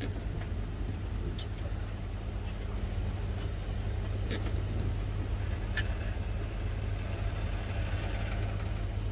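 Steady low machine hum with three light clicks spread through it.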